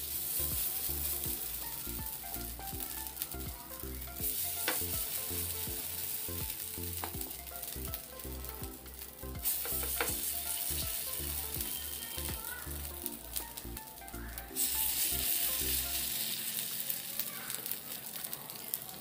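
Suji (semolina and curd) batter sizzling in shallow oil in a nonstick frying pan as spoonfuls are dropped in one after another, with a few sharp clicks of the spoon against the pan.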